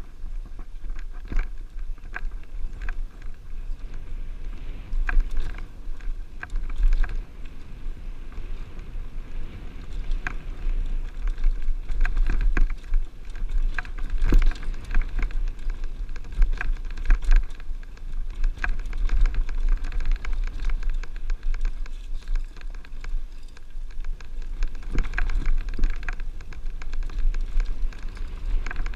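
Mountain bike rolling fast over bare slickrock: a steady crackle of small knocks and rattles from the tyres and bike over the rock, over a low rumble of wind on the microphone.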